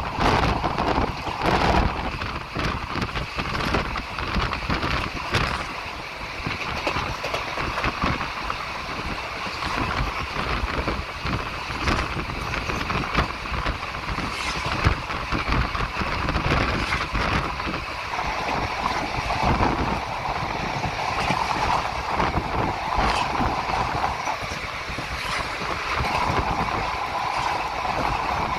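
Passenger train running between stations, heard from on board: a steady rumble of wheels on rails with irregular clatter and knocks.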